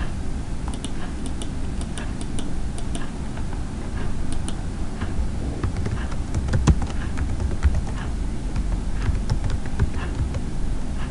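Computer keyboard typing: irregular, scattered key clicks as a short phrase is typed, over a steady low hum.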